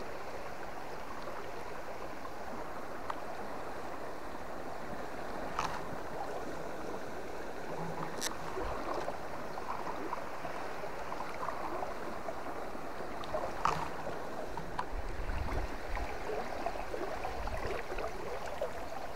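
River water rushing steadily over a flowing stretch, with a few brief sharp clicks and a low rumble near the end.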